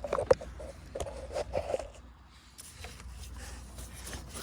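Screwdriver prying and scraping at a part of the PCV / oil separator assembly on the engine. A quick run of sharp clicks and scrapes fills the first two seconds, then it goes quieter.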